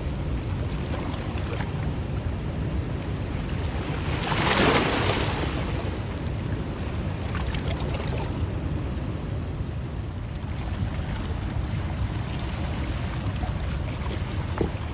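Steady rumbling wind noise on the microphone over rushing water, with a louder whooshing surge about four and a half seconds in.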